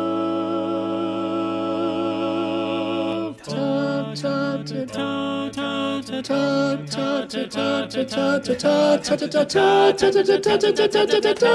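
Voices singing a cappella: a long held chord with vibrato, then after a short break a run of short, clipped notes that grows busier and louder toward the end.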